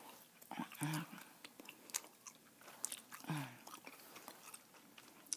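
Close-miked chewing of a large wad of Bazooka bubble gum: wet mouth sounds broken by frequent short, sharp snaps and clicks of the gum. Twice there is a brief low hum from the mouth, about a second in and again past the three-second mark.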